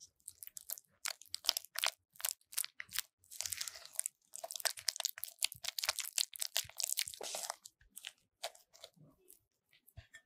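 Silicone spatula mixing an egg yolk into creamed butter and sugar in a glass bowl: quick wet scraping strokes against the bowl, thinning out near the end.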